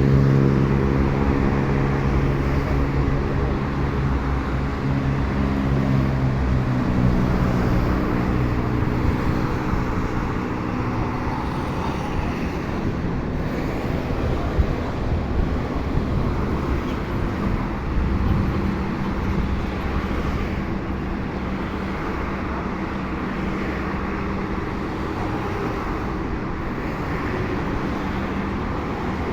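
Steady road traffic noise from a busy highway. A pitched motor drone fades away over the first few seconds, and a fainter hum passes briefly about two-thirds of the way through.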